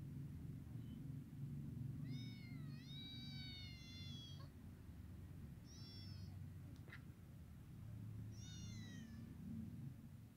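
Three-week-old kittens mewing: high-pitched cries that glide in pitch. Two come close together about two seconds in, then single mews near six and near eight and a half seconds, over a low steady rumble with a small click near seven seconds.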